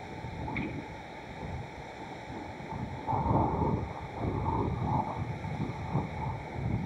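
Wind buffeting an outdoor camera's microphone as an uneven rumble, gusting louder about halfway through.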